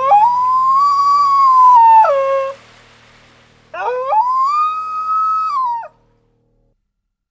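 A dingo howling: two long howls, each sweeping up steeply, holding a steady pitch, then dropping away at the end. The second starts about a second after the first ends.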